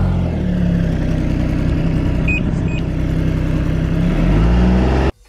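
Snowmobile engine idling steadily just after starting, with the machine standing still; the revs rise briefly near the end before the sound cuts off suddenly. Two faint short beeps come about two seconds in.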